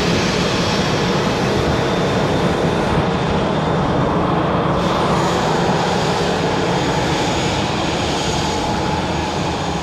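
Airbus A320's jet engines running at taxi power as the airliner moves away: loud, steady engine noise with a faint high whine over it.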